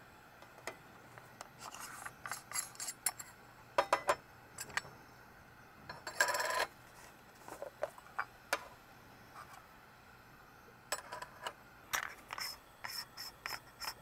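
Metal and plastic parts of a hand coffee grinder being handled: scattered light clicks, taps and short scrapes as the grounds cup and its lid are twisted apart and set down. One longer rasping scrape comes about six seconds in, and a quick run of small ticks near the end.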